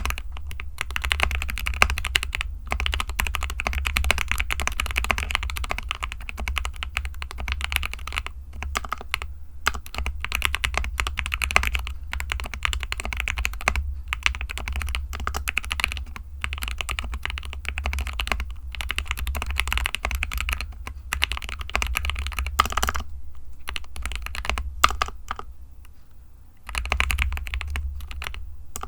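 Fast typing on a GK61 60% mechanical keyboard: a dense, continuous run of key clacks that eases off and quietens for a few seconds about three quarters of the way through, then picks up again at full pace.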